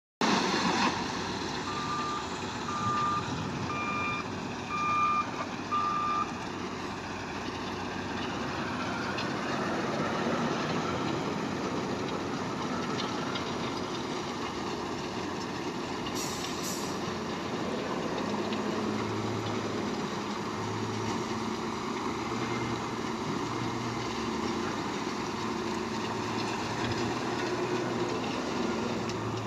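Heavy construction machine's diesel engine running steadily, with its reversing alarm beeping five times, about once a second, a couple of seconds in. A brief hiss sounds about halfway through.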